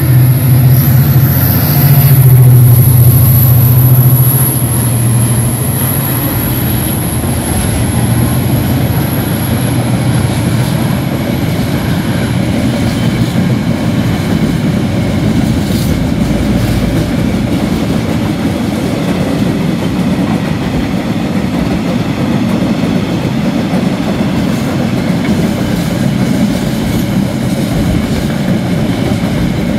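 KiwiRail diesel freight locomotives passing under power: a loud low engine drone with a high whine, loudest a few seconds in, the whine fading out over the next several seconds. After that comes the steady rolling noise of a long train of container wagons running over the rails.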